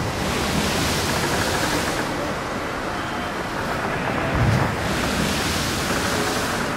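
Steady, even din of a crowd echoing in an indoor pool hall, with two dull low thumps on the microphone, one at the start and one about four and a half seconds in.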